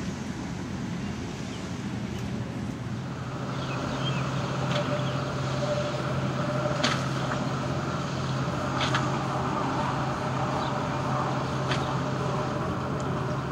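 Steady low hum of motor traffic, with three sharp clicks a couple of seconds apart in the second half.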